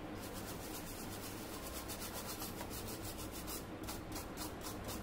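A brush scrubbing the solder side of an air-conditioner inverter circuit board in quick back-and-forth strokes, about five a second, to clean it after soldering. The strokes thin out and stop near the end.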